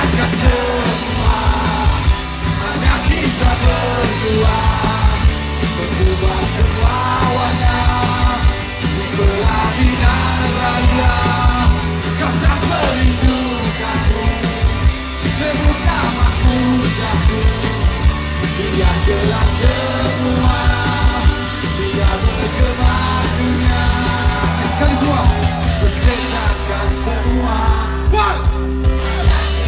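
Live rock band playing loud through a concert PA: electric guitars, bass and drums, with a vocalist singing over them. It is heard from within the audience.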